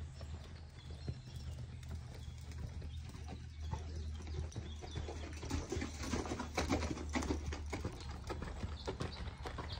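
Horse's hoofbeats on sandy arena footing as it moves past, the strikes growing loudest as it comes closest about six to seven seconds in. A steady low hum runs underneath.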